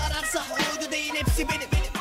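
Turkish hip hop track playing: a man rapping over a beat of repeated kick drums and a bass line.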